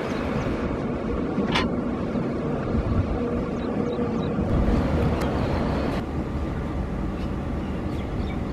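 Steady rumble of an Indian Railways express train running over the rails as it pulls away, with a single sharp clack about a second and a half in.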